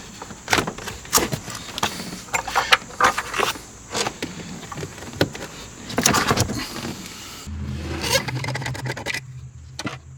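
Hand tools clicking, knocking and scraping against metal as the 12-volt battery's negative terminal is undone. The knocks come at an irregular pace, and a low steady hum starts about two-thirds of the way in.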